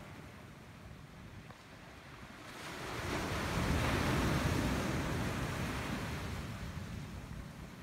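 Small waves breaking and washing up a sandy beach. A wash of surf swells about two and a half seconds in, peaks around four seconds and slowly fades, over a low rumble of wind on the microphone.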